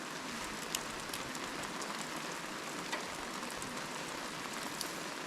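Steady rain falling, with scattered drops tapping.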